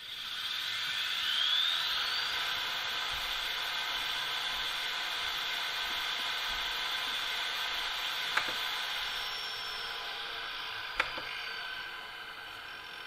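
Steam turbo-generator sound from the model locomotive's ESU LokSound 5 sound decoder, played through its loudspeaker. A whine rises in pitch as the generator spins up, then settles into a steady hissing whine. Two short clicks come late on, and the sound drops a little near the end.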